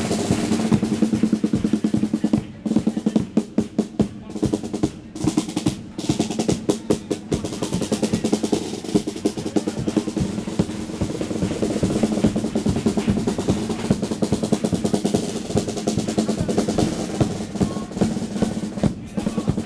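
Snare drum of a Cádiz carnival chirigota playing fast rolls and beats over a steady pitched musical backing.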